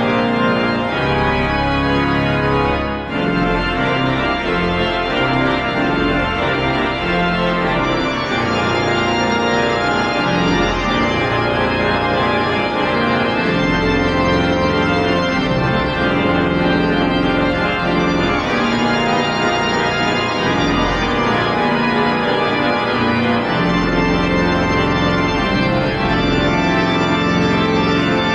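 Church organ playing full, sustained chords over deep bass notes, with a brief break about three seconds in.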